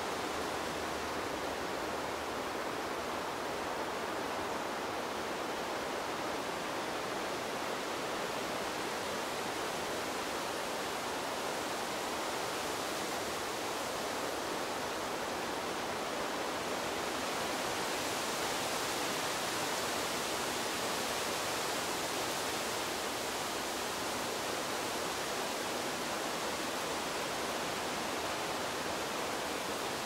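Wind blowing through trees, a steady rushing of leaves that swells slightly a little past halfway and then eases.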